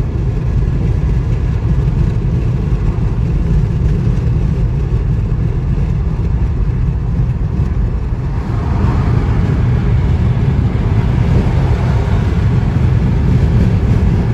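Road noise inside a car cabin at motorway speed: a steady low rumble of tyres and engine, with a rushing hiss that grows louder about eight seconds in.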